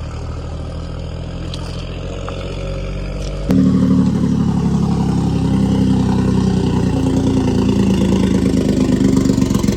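A motor vehicle's engine running close by, a steady hum that steps up louder and higher about three and a half seconds in.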